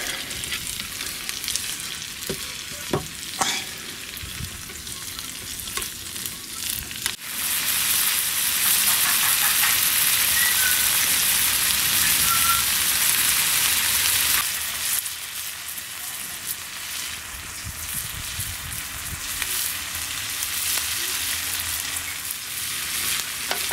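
Diced Kassler (smoked pork) and carrots sizzling as they fry in an iron pan over a wood-fired hobo stove. The sizzle jumps suddenly louder about seven seconds in, holds for about seven seconds, then eases back. There are a couple of light knocks about three seconds in.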